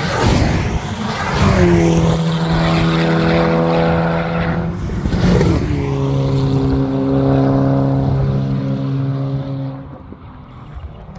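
A BMW hatchback race car passes close at full throttle and pulls away down the straight, its engine note held steady. About five seconds in there is a gear change and the note drops lower, then it fades out near the end.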